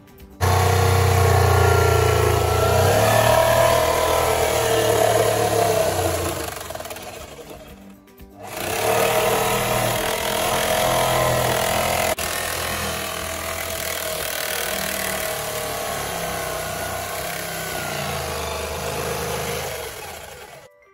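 Background music mixed with a handheld corded power tool running, which drops out briefly about eight seconds in.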